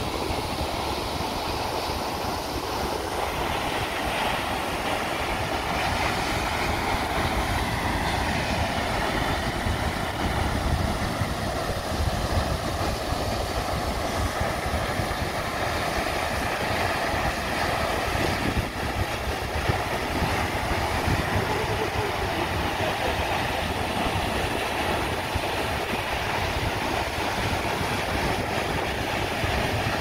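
Lower Düden Waterfall plunging off the cliff into the sea: a steady, unbroken rush of falling water.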